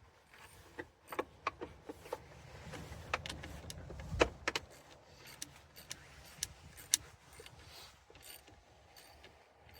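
Irregular sharp metallic clicks and clinks of hand tools and parts being worked while fastening components on a lawn tractor, with a low rumble in the middle and the loudest clack about four seconds in.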